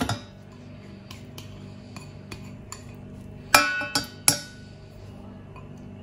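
Slab of butter dropping into a stainless steel saucepan with a clank, then clinks and taps as a silicone spatula pushes the butter around the pan, with two loud metallic clanks a little past halfway.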